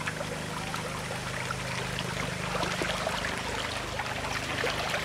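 Shallow muddy water sloshing and trickling as people wade through a drained catfish pond, with many small splashes from feet and stranded catfish, over a steady low hum.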